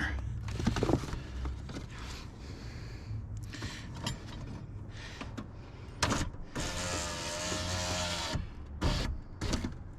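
Power window motor in a 2010 Ford Escape's rear passenger door running for about two seconds near the end with a steady whine, raising the newly fitted glass into its track. Sharp clicks come just before and just after it.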